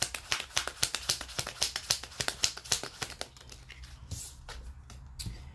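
A deck of oracle cards being shuffled by hand: a fast run of crisp papery clicks and slaps as the cards are dropped from hand to hand, thinning to a few scattered clicks about four seconds in.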